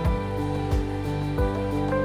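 Background music with a steady beat: a low drum thump about every two-thirds of a second under held melodic notes.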